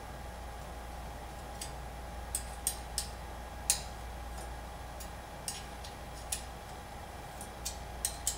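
A metal Allen (hex) wrench clicking against screw heads and rack hardware as the rack's mounting screws are tightened: about ten sharp, short clicks at irregular intervals, over a faint steady hum.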